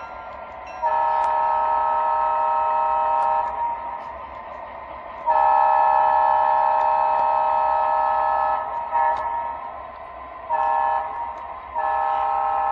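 Sound-decoder horn of an O scale Atlas GP7 diesel model, a multi-note chord played through the locomotive's small speaker over its steady engine sound. It sounds two long blasts, a short one and another long one, the long-long-short-long grade-crossing signal.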